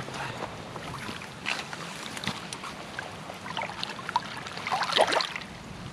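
Irregular splashing and sloshing of water, loudest in a cluster about five seconds in.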